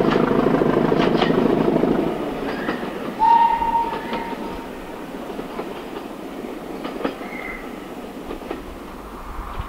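Class 205 diesel-electric multiple unit running away down the line, loud at first and fading after about two seconds as it recedes, with a few clicks of wheels over the rails. A single horn note sounds about three seconds in.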